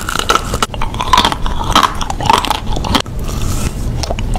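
Close-miked ASMR eating: repeated crunchy bites into a chocolate-coated ice cream bar, the hard chocolate shell cracking, with chewing between bites.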